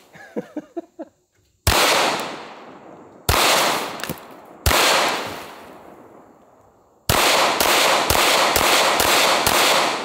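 Staccato P 2011 pistol being fired: three single shots about a second and a half apart, each echoing off, then a rapid string of about nine shots near the end.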